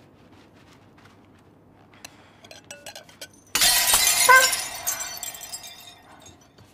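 White ceramic dishware dropped onto a tile floor and smashing, a sudden loud crash about three and a half seconds in, followed by shards scattering and clinking for a couple of seconds. Before the crash come a few light clinks of dishes being handled.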